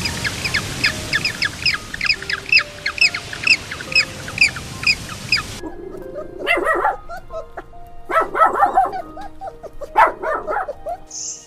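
A short high chirp repeated about three times a second over a hiss, then, after a cut, a dog barking in three bursts of several quick barks.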